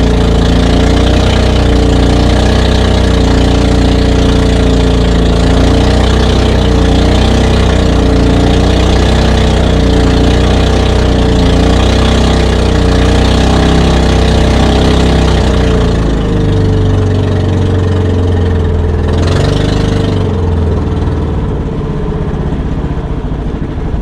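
Outrigger bangka's inboard engine running steadily under way. About two-thirds of the way through it is throttled back to a lower, slower note and grows quieter: the boat is slowing to come in to shore.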